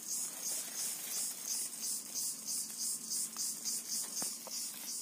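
Insects in the field chirring in a steady high-pitched chorus that pulses evenly, about four times a second.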